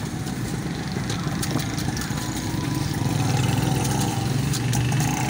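A motor engine running steadily at idle, a little louder from about three seconds in, with scattered light clicks over it.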